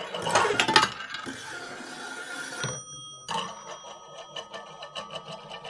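Homemade marble-run sound contraption: marbles clicking and rattling through tin cans and metal parts, with a short electronic ringing tone a little before the middle.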